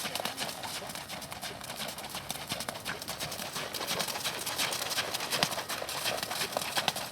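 A Thoroughbred's hooves striking the riding-arena footing in a continuous run of hoofbeats.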